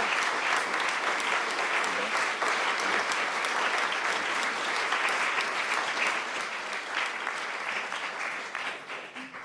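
Audience applauding, many hands clapping together at a steady level, dying away near the end.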